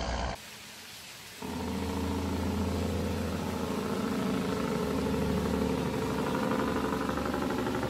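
Heavy truck's diesel engine running, a steady pitched drone that comes in abruptly about a second and a half in.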